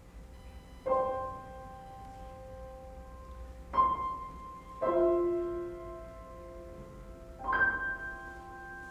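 Piano playing slow chords: four chords struck a few seconds apart, each left to ring and fade.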